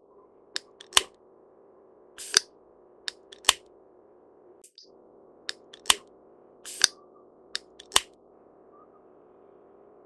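Great spotted woodpecker pecking at dead wood: irregular single sharp taps, about ten in all, some in quick pairs, over a faint steady hum.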